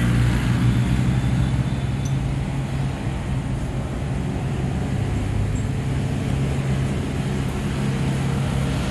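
A steady low engine hum over a constant background hiss, the kind of sound distant road traffic or a running motor makes.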